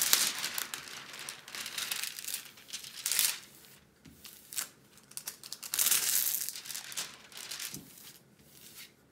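Clear plastic protective film on a diamond painting canvas crinkling as hands smooth it flat, in irregular bursts: loudest at the start, about three seconds in and again around six seconds in.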